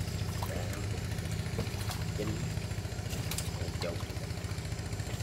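Small engine running steadily at a low, even pulse, with scattered light clicks and knocks on top.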